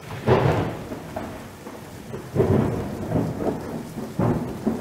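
Thunderstorm sound: steady rain with three claps of thunder, about a second in, about two and a half seconds in, and near the end.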